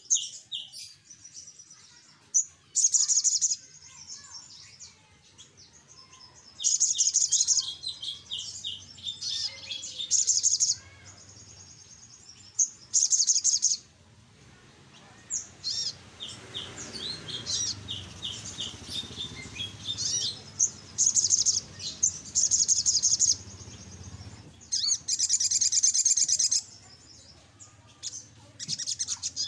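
Male sunbird (sogok ontong) singing in short bursts of fast, high-pitched chirping trills, about eight to ten bursts with short pauses between.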